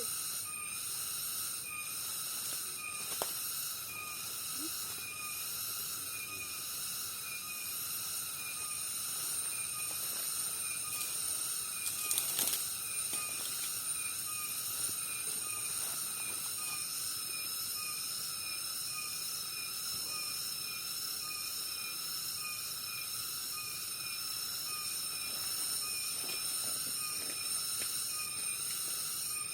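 Rice-paddy night-time-style chorus of insects: several steady high-pitched trills, with a short pulsed call repeating evenly every second or less. A brief scratchy noise stands out about twelve seconds in.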